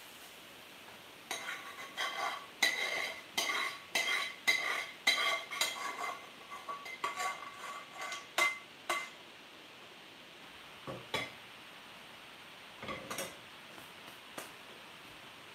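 Long metal spoon knocking and scraping against a metal frying pan, about two strokes a second, each stroke setting the pan ringing, as curry is scooped out into a foil tray. A couple of duller knocks follow near the end.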